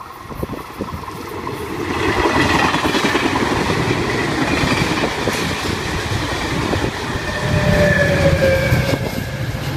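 Caltrain diesel commuter train of bilevel gallery cars passing close at speed, its wheels clattering over the rail joints; the sound swells in the first two seconds as the train arrives, with thin whines falling slowly in pitch. A deeper engine rumble builds near the end as the diesel locomotive pushing at the rear comes by.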